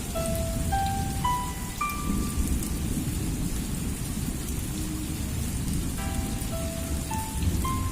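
Steady rain pouring down onto yard plants, with a deep low rumble under the patter. A soft, stepping melody of single notes plays over it in the first two seconds and again from about six seconds in.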